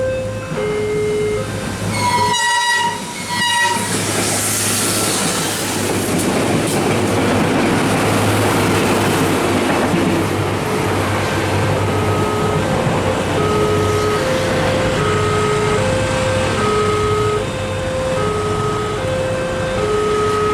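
Level-crossing warning alarm sounding its alternating two-tone signal; a locomotive horn gives two short blasts about two seconds in, then a train passes through the crossing with a loud, steady rumble of wheels on rails. The alternating warning tones come through again from about twelve seconds in.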